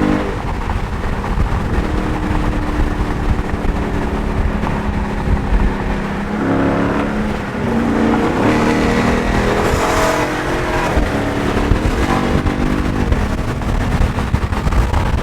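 A Dodge Charger 392's 6.4-litre HEMI V8 running on the move, its exhaust note rising in pitch a few times as it accelerates. The owner says this exhaust sounds like a bad chainsaw.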